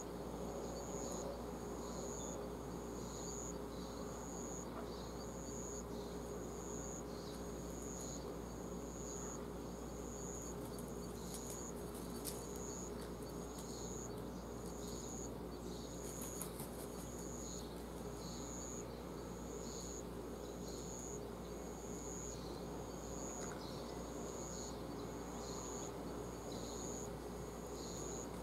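An insect chirping in an even rhythm, one short high-pitched pulse about once a second, over a steady faint background hum.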